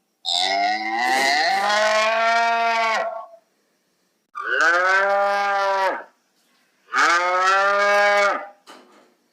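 Cow mooing: three long, drawn-out moos, each about one and a half to three seconds long, with short silent gaps between them.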